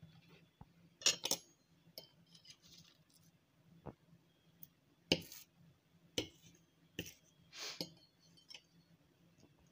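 Metal cutlery clinking and tapping against a ceramic plate: about eight short, sharp clinks at uneven intervals.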